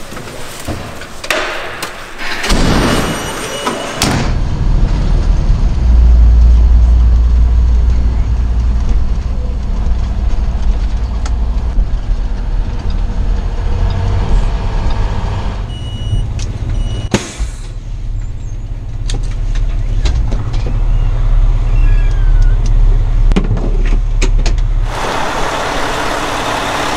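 Fire engine's diesel engine running under way, heard from inside the cab as a loud, steady, deep rumble. It is preceded by a few seconds of knocks and clatter, with a sharp break about 17 seconds in.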